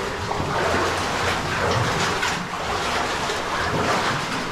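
Water rushing in an underground cave stream, a steady noisy wash with uneven surges.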